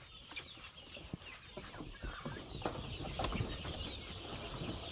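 A flock of free-ranging chickens clucking quietly, with scattered short clicks.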